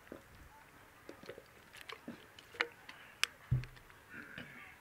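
Quiet sips and swallows from a plastic water bottle, with faint crinkles and clicks of the bottle. A soft low thump comes about three and a half seconds in.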